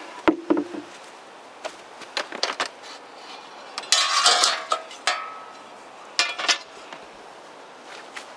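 Steel chainsaw guide bars and chain clinking and clanking as they are picked up and handled: a string of sharp metallic knocks, with a longer rattle about four seconds in.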